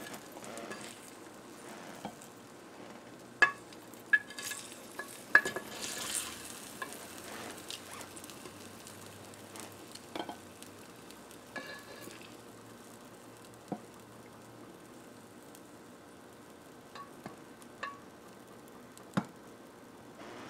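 Metal kitchen tongs clicking and tapping against a glass baking dish and a ceramic plate as roasted beets are lifted across, a few scattered sharp clinks. Under them runs a faint steady sizzle from the beets and dish fresh out of the broiler.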